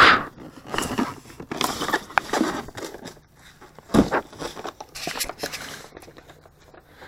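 Cardboard boxes and packaging of fireworks being handled and rummaged through: irregular rustling, crinkling and clicks, with one louder knock about four seconds in.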